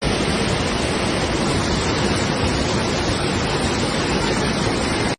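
Steady rush of a flooding river's fast-moving water.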